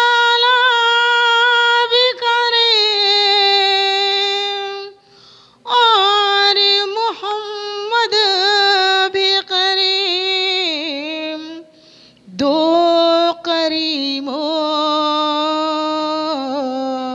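A woman singing a qawwali solo, unaccompanied, in three long high phrases of held, wavering, ornamented notes without words, with short breaks between them.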